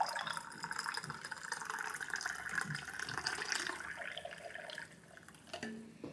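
Liquid pouring from a plastic jug into a ceramic mug in a steady stream, tapering off and stopping about five seconds in.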